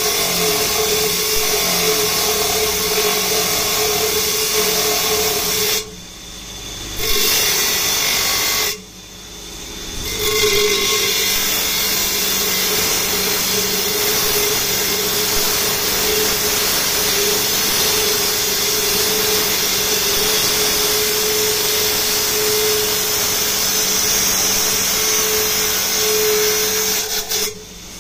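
A circular stone-cutting saw grinding through a block of nephrite jade: a loud, steady grinding hiss over a constant hum. It drops off sharply twice, about six and nine seconds in, and again near the end, as the block is sawn into two halves.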